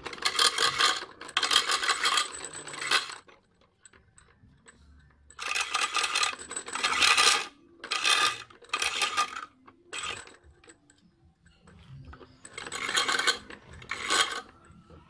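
Small carved wooden cart part pressed again and again against a spinning abrasive wheel, giving a harsh rasping scrape in short strokes. The scraping comes in three spells with short pauses between them.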